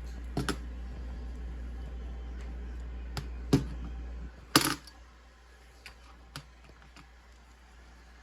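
Clicks and knocks from handling an air horn that gives no blast: a few sharp clicks, the loudest about four and a half seconds in, over a low steady hum that cuts off just before it.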